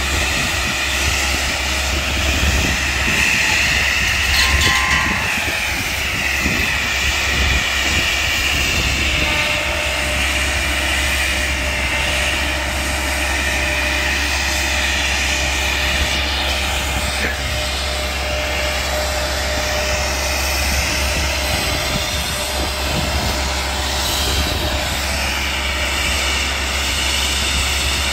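Tree-trimming machine running steadily while the circular saw at the end of its long boom whines, its pitch wavering up and down as it cuts into brush and limbs.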